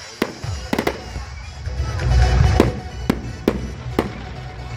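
Aerial fireworks shells bursting: about eight sharp bangs at uneven spacing, over a low rumble that swells about two seconds in.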